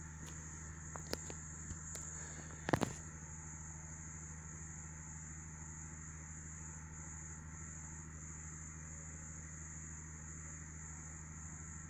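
Quiet room tone with a steady high-pitched whine and a low hum. There are a few light taps in the first two seconds and a short rustle just under three seconds in, from the string and marker being handled on the pattern paper.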